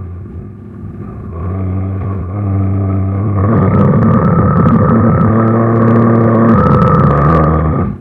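A long, low growl used as a made-up creature sound effect. It grows louder over the first three seconds, holds with a few shifts in pitch, and cuts off just before the end.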